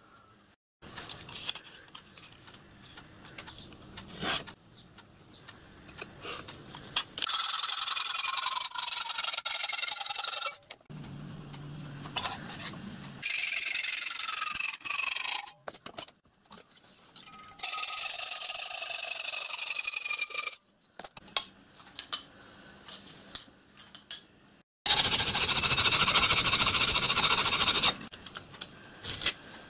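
Hand hacksaw cutting thin 1/16 in steel plate clamped in a bench vice, each stroke giving a rasping cut with a shrill ringing note that wavers. It comes in three stretches of a few seconds each, with quieter scraping and clicks of handling between.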